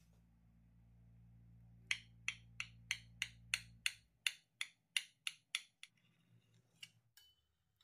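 A quick run of about a dozen light, even taps, roughly three a second, with two more near the end. A steady low hum stops about four seconds in.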